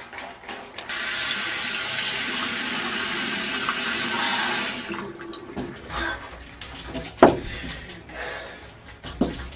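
Tap water running into a sink for about four seconds, starting suddenly and then shut off. A sharp knock follows a couple of seconds later, with a fainter click near the end.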